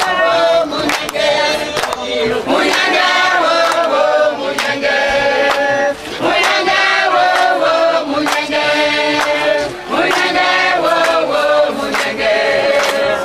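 A choir of men and women singing together, with sharp beats keeping time.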